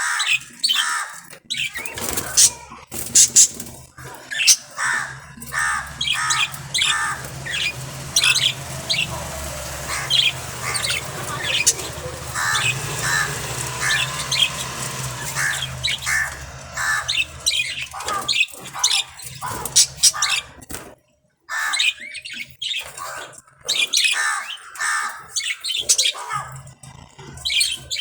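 Budgerigars chirping and squawking in quick, short calls that keep coming throughout, over a steady low hum for the first two-thirds or so.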